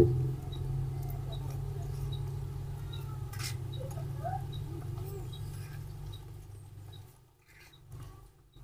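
Baby monkey suckling at a milk bottle, with small faint squeaks, over a steady low hum that stops about seven seconds in.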